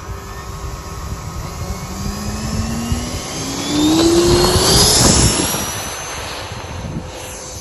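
Radio-controlled model jet flying past: a whine that climbs in pitch as it comes closer, loudest about four to five seconds in, then fading away.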